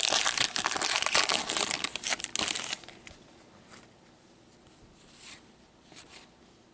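Crinkling and tearing of a hockey card pack's wrapper as it is handled and opened, for about three seconds, then a few faint rustles.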